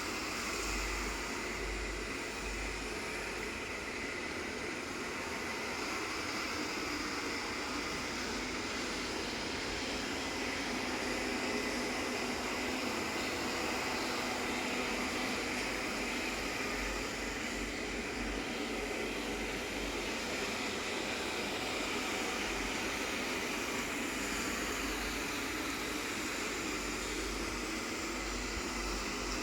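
Lydsto R1 robot vacuum cleaner running steadily, its suction fan giving a continuous, even whirring hiss.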